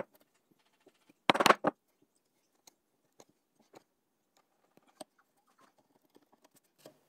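A bench chisel paring the bottom of a mortise in jarrah hardwood by hand. About a second and a half in there is a short, loud, crackling run of cuts. After that come scattered faint ticks of the blade scraping and lifting shavings.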